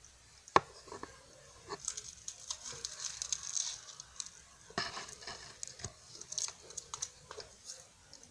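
Close-miked crinkling and crackling of a French Pie's plastic wrapper being handled and torn open, in two stretches of rustling, with a sharp click about half a second in.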